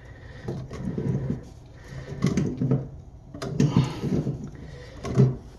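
Tongue-and-groove pliers clicking and scraping on the toilet supply line's coupling nut as it is loosened, with a few sharp clicks and several short, low vocal sounds in between.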